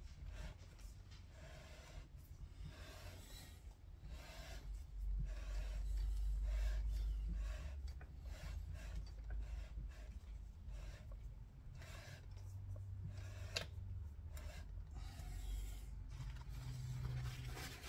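Rhythmic back-and-forth rubbing strokes worked in rifle scope rings, about three every two seconds. A single sharp click comes about three-quarters of the way through.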